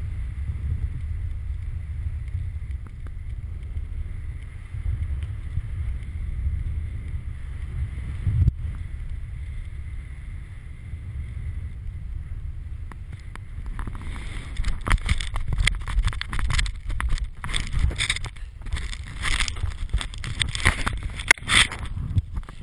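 Wind buffeting the microphone under a parachute canopy in flight, a steady low rumble with one sharp knock about a third of the way in. From about two-thirds through it breaks into irregular crackling, rustling and knocking against the microphone.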